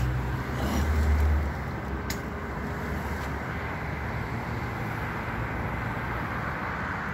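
Road traffic: a vehicle's low rumble passes and fades in the first second and a half, then a steady hiss of traffic noise, with one short click about two seconds in.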